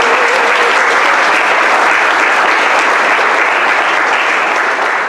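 Audience applauding steadily, with a single voice calling out briefly at the start.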